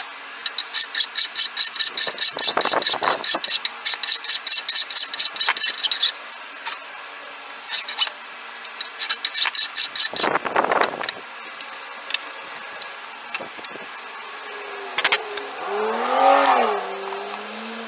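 A file rasping over a hickory handle in quick, even strokes, about four a second, for the first six seconds, followed by a few single scrapes. Near the end an engine rises and then falls in pitch.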